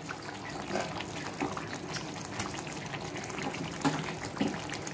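Thick masala gravy bubbling and sputtering in a pan on low heat, with a few soft plops and knocks as pieces of fried chicken go in.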